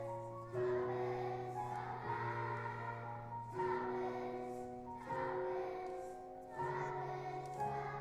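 Children's choir singing a song, with new sung phrases starting about half a second in, again after three and a half seconds and near the end, over steady low accompanying notes.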